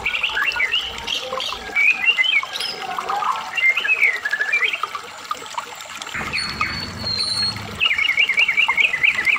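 Medan-type white-rumped shama (murai batu) in full song: varied whistled phrases with rising and falling glides and chattering, ending in a fast run of repeated notes near the end.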